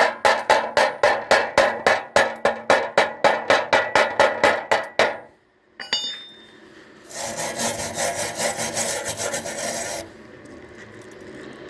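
A hand tool rasping back and forth over metal in even strokes, about four a second, for roughly five seconds. A short metallic clink follows, then a faster run of rasping strokes for about three seconds.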